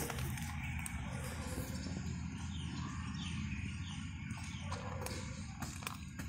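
Small birds chirping, a run of short falling calls in the middle, over a steady low background rumble. A few sharp clicks near the end fit a cat crunching dry kibble.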